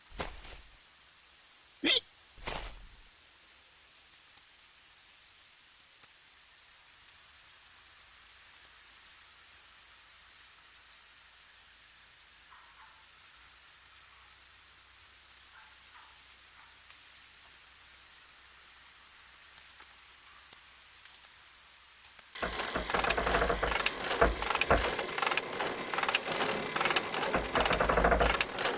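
High-pitched insect trilling, a fast even chirr that runs on steadily. From about 22 seconds in, a louder, fuller noise joins it.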